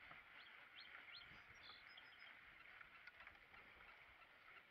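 Near silence: a faint steady hiss, with a few faint short high chirps in the first half.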